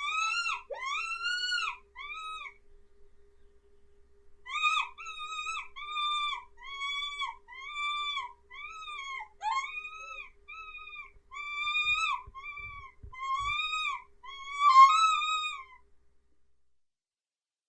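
Mouse distress squeaking used as a predator-calling lure. It is a string of high, arching squeaks at about three every two seconds: a short run, a pause of about two seconds, then a longer run that stops shortly before the end.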